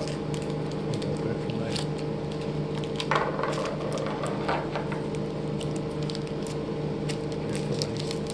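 A trading-card pack's plastic wrapper crinkling and rustling in short, scattered crackles as it is worked open by hand, over a steady low hum.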